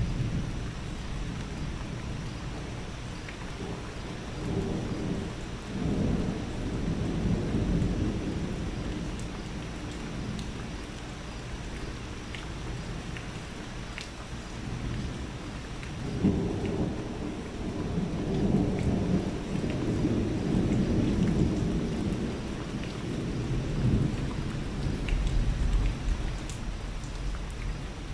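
Thunder rumbling in long rolls, one about four seconds in and a longer one from about sixteen seconds in, over steady rain.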